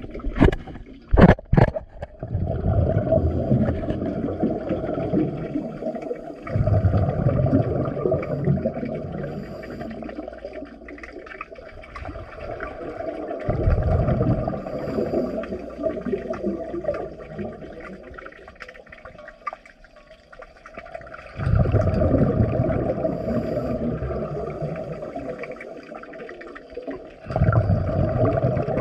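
Scuba regulator exhalations heard underwater: a long bubbling rush of exhaled air every several seconds, with quieter stretches between the breaths. A few sharp clicks come about a second in.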